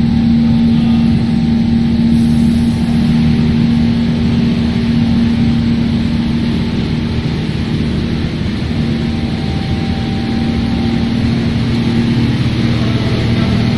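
Industrial microwave drying equipment running: a loud, steady machine hum with a constant low drone and even fan-like hiss.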